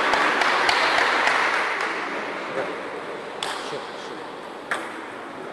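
Spectators applauding at the end of a table tennis point, dying away over about two seconds. Later, two sharp single ticks of the table tennis ball, about a second apart.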